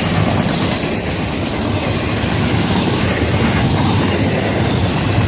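Freight cars of a Florida East Coast Railway train rolling past at close range, a steady loud rumble and clatter of steel wheels on the rails.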